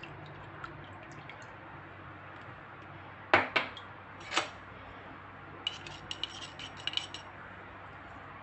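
Small metal mesh strainer knocking against a metal pot and utensils: three sharp knocks about halfway through, then a quick run of lighter metallic taps.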